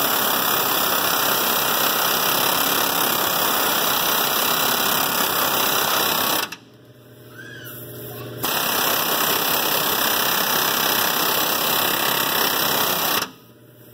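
Pneumatic air hammer with a center link separator bit hammering on the steering center link of a 1969 Buick LeSabre, trying to break loose a joint that has not been apart since 1969. It runs in two long loud bursts, stopping for about two seconds partway through.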